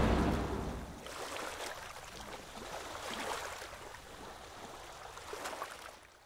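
Faint sea surf and washing water with small splashes, after a loud sound dies away over the first second; it cuts off suddenly near the end.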